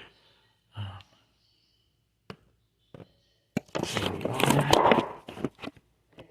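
A person's long, loud sigh, breathy with a little voice in it, about halfway through, with a few sharp clicks and small knocks before and after it.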